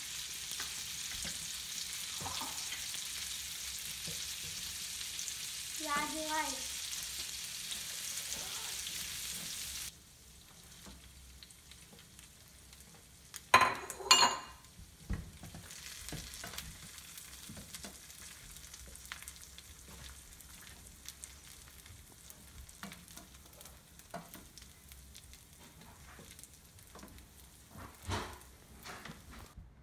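Onions and peas sizzling in hot oil in a stainless frying pan, a steady loud hiss that cuts off abruptly about ten seconds in. Then a couple of sharp knocks of a utensil, followed by a much quieter sizzle with the light scraping and clicking of a spatula stirring fried rice in the pan.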